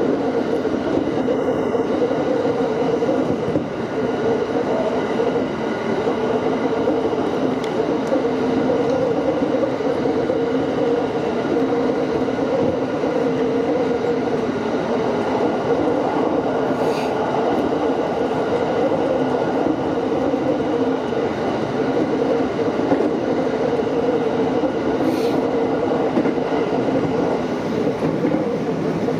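JR West 227 series electric multiple unit running at a steady speed, heard from inside the cab: a constant rumble of wheels on rail with several steady humming tones over it and a couple of faint clicks.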